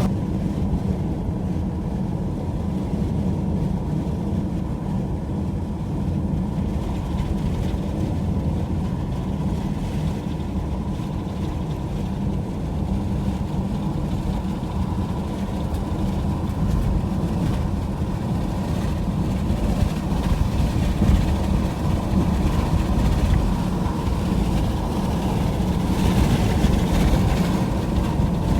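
Steady low rumble of a vehicle driving on the road: engine and tyre noise, with no sharp events.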